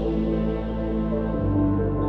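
Background music: soft ambient music with sustained synth-like chords, the chord changing about a second and a half in.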